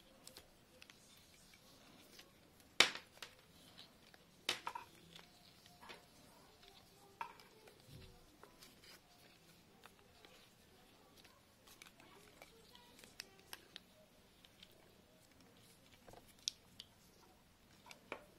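Handling noise from wired earphones being taken out of their fabric-covered packaging holder and their cable unwound: scattered light clicks and taps. The sharpest click comes about three seconds in, with another around four and a half seconds.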